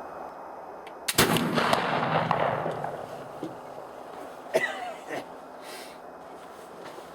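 A .50-calibre Traditions Kentucky flintlock rifle firing a black-powder load about a second in. A short click comes just before the shot, the lock and priming pan going off, and the report's rumble fades over about two seconds. A single sharp knock follows a few seconds later.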